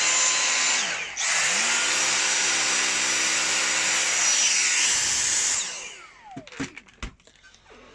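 Dyson V6 Animal cordless vacuum cleaner running with a high motor whine. About a second in the motor briefly dips and spins back up. After about five and a half seconds it switches off and winds down in falling pitch, followed by a few handling clicks.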